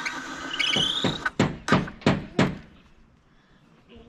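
Hammer striking into wooden boards: four sharp knocks in quick succession, about a third of a second apart, starting a little over a second in.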